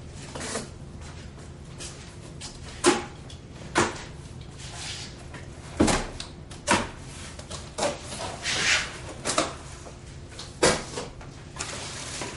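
Cardboard cartons being handled and cut open: a knife slitting the tape and cardboard of a carton, with several sharp knocks and thumps of cardboard and a scratchy scraping stretch a little past the middle.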